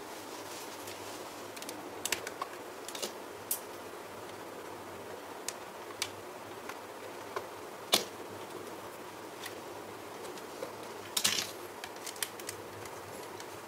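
Scattered light clicks and taps of hard plastic and packaging being handled while a drone is unboxed, over a steady low hiss. A sharper tap comes about eight seconds in, and a short cluster of clicks about three seconds later.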